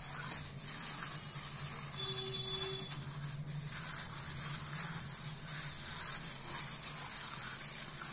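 Wet squelching and plastic rustling as a gloved hand kneads raw chicken pieces in marinade in a steel bowl, over a steady low hum.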